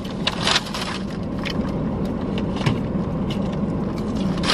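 Paper takeout bag crinkling in short bursts as it is handled, over the steady hum of a car's running air conditioning inside the cabin.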